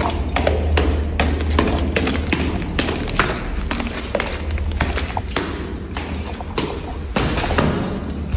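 Sneakered footsteps going quickly down a flight of stairs, about two to three steps a second, over a steady low rumble.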